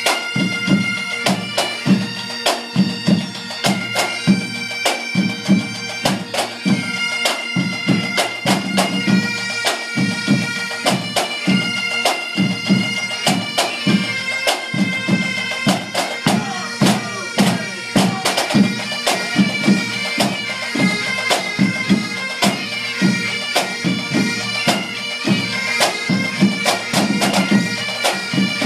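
A pipe band playing: several Highland bagpipes play a melody over a steady drone. Snare, tenor and bass drums beat a fast rhythm through it.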